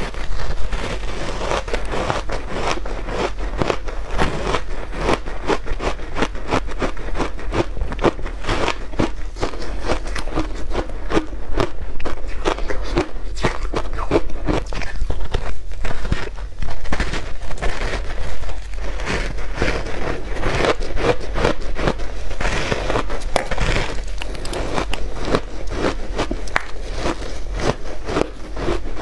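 Frozen shaved ice coated in matcha powder being bitten and chewed close to the microphone: continuous dense crunching and crackling of the ice.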